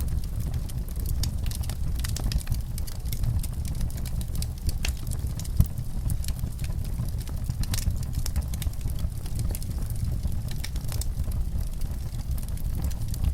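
Wood fire burning in a fireplace: frequent small crackles and pops over a steady low rumble of the flames, with one sharper pop about five and a half seconds in.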